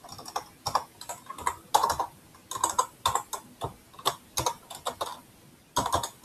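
Computer keyboard typing: irregular keystrokes coming in small clusters, stopping just before the end.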